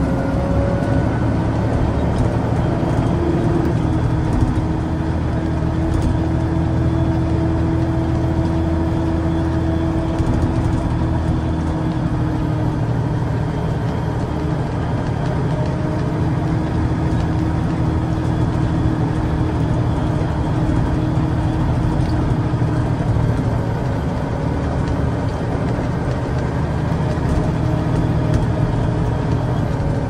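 Peterbilt concrete mixer truck's diesel engine running steadily as the loaded truck drives slowly along a winding street, a continuous low drone whose pitch eases slightly about a third of the way in.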